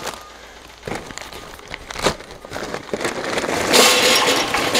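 Lump charcoal being poured from a bag into a cast-aluminum PK grill, the lumps clattering and rattling into the firebox. A few separate knocks come first, and the pour starts about three and a half seconds in, growing loudest near the end.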